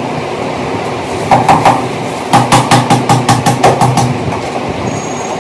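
A quick series of sharp knocks, three and then a run of about ten at roughly six a second, as the shoe rack's metal rods are knocked into their plastic connectors.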